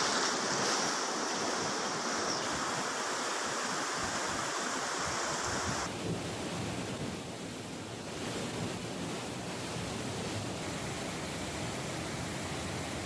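Floodwater of a swollen river rushing and churning: a steady, rushing noise that changes character about six seconds in.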